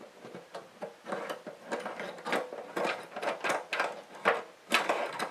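Metal parts of a kerosene heater's wick-adjuster and automatic shut-off mechanism clicking and rattling as they are worked by hand, in quick irregular clicks.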